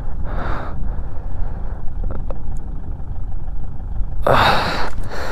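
Wind buffeting the action camera's microphone: a steady low rumble, with brief louder rushes of noise just after the start and again about four seconds in.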